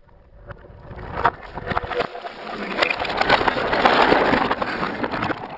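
Die-cast toy cars and a toy train rolling down a multi-lane plastic race ramp: a rattling roll of wheels on plastic with many small clicks, growing louder to a peak about four seconds in.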